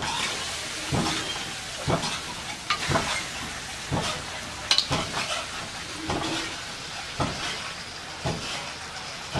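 Duck pieces sizzling as they fry in oil in a steel wok, with a short sharper sound about once a second as more raw pieces are dropped in by hand.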